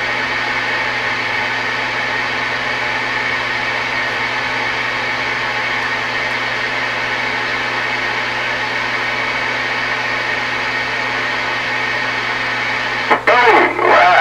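Steady static hiss from an old CB radio receiver's speaker with the squelch open, over a low hum. A voice comes through the static near the end.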